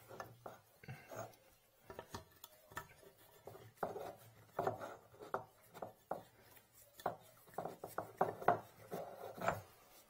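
Irregular clicks, taps and scraping of a tool and metal and plastic drain fittings being worked in a bathtub drain opening, the strokes coming more thickly in the second half.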